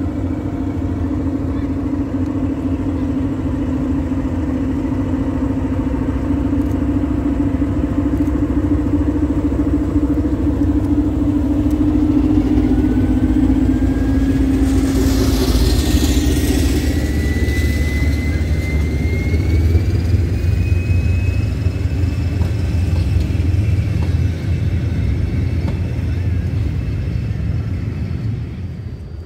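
SM42 diesel-electric shunting locomotive pulling away with a passenger train, its eight-cylinder diesel engine working under load. It is loudest as it passes about halfway through, with a high whine that rises in pitch, then fades as it draws away near the end.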